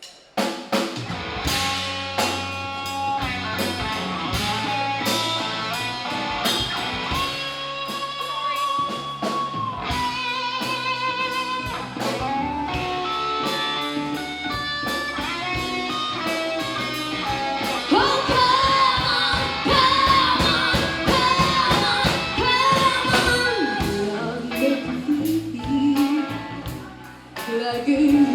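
Live bar band playing a country-rock cover: a singer over electric guitar and drum kit.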